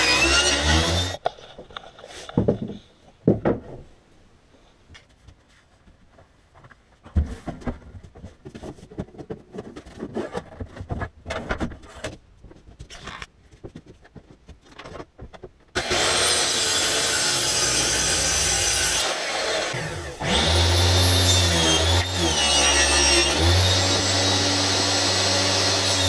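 Table saw cutting sheet material, its motor cutting off about a second in. Then comes a long quiet stretch of scattered clicks and scrapes from wood being handled. Power saws run loudly for the last ten seconds, the table saw's motor pitch dipping twice as the blade takes the cut.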